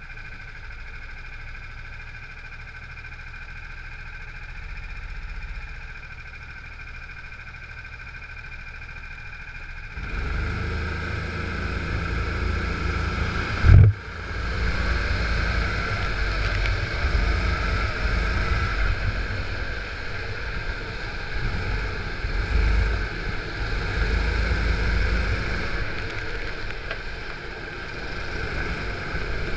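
Onboard sound of a rental go-kart's engine with other karts around it: a steady lower running sound at first, then about ten seconds in the engine noise jumps up sharply and stays loud as the kart gets under way, with one loud thump a few seconds later.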